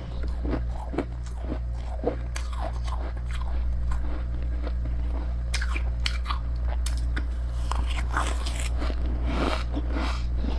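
Close-miked biting and chewing of freezer frost ('snow ice'): a steady run of crisp, powdery crunches, some coming in quick clusters, over a constant low hum.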